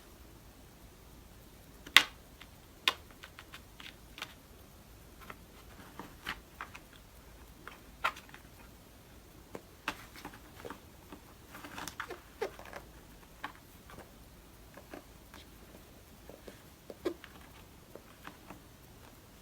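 Scattered light taps, clicks and knocks of house cats moving and playing in a small room, the sharpest about two seconds in.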